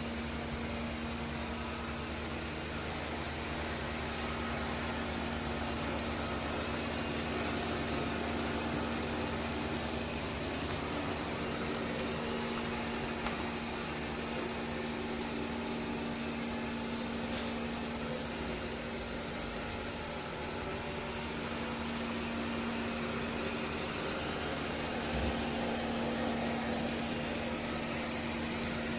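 ECOVACS DEEBOT T50 robot vacuum running: a steady motor hum with a constant low tone.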